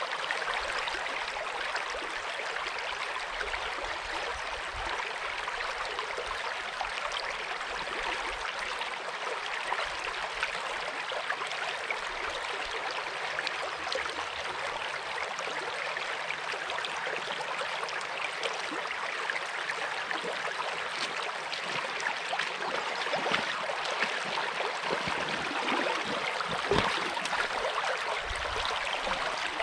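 Shallow brook running over rocks in a riffle close by, a steady rushing and gurgling. Near the end, a few louder splashes of someone wading through the water close up.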